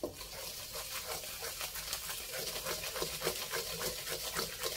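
Coconut sugar and lard bubbling and sizzling in a pan over low heat as the sugar cooks down toward caramel: a steady, fine crackle of many small pops.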